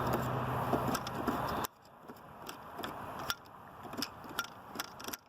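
Steady background noise with a low hum that cuts off abruptly about a second and a half in, followed by a quieter stretch of scattered small clicks and taps from handling tools and wires.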